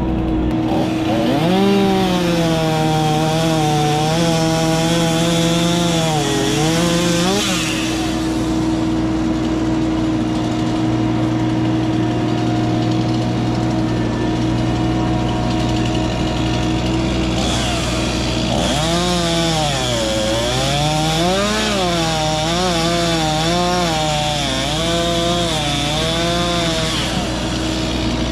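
Two-stroke chainsaw cutting wood in two long bouts about ten seconds apart, its engine pitch climbing and dipping as it bogs under load. A steady engine hum runs underneath throughout.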